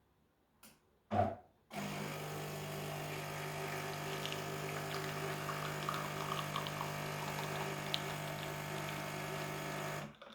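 Automatic espresso machine brewing a short coffee: a click and a clunk about a second in, then its pump runs with a steady hum for about eight seconds and stops just before the end.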